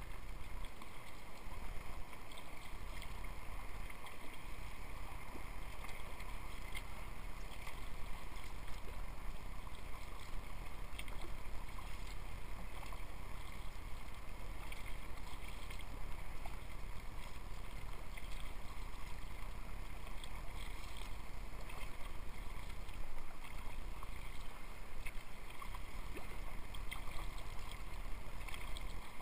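Water splashing and lapping around a sea kayak as it is paddled through light chop, over a steady low rumble.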